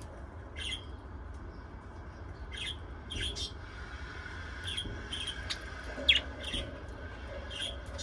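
Small pet parrots giving short, scattered chirps, about a dozen, the loudest about six seconds in, over a steady low hum.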